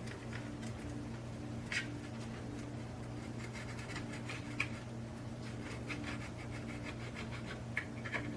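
Faint scratching, rubbing and small clicks of hands working tape and fine wires inside a model locomotive shell, over a steady electrical hum.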